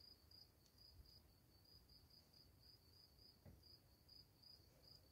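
Near silence, with a cricket chirping faintly and evenly at about three chirps a second. A soft bump comes about three and a half seconds in.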